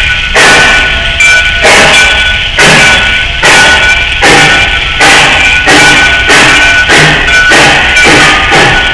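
Music track with a steady drum beat, about one hit every 0.8 seconds, under held instrument notes.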